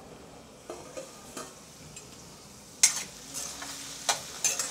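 Steel kadai lid lifted off with a few faint clinks, then, about three seconds in, a metal spoon stirring diced potatoes frying in oil in a steel kadai: sharp scraping and clinking strokes against the pan over a light sizzle.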